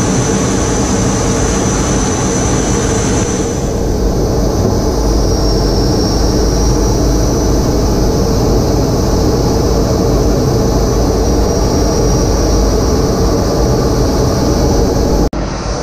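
Jet trainer's engine running steadily in flight, heard from inside the cockpit as a dense roar with a thin high whine that dips slightly in pitch twice. The sound drops out briefly near the end.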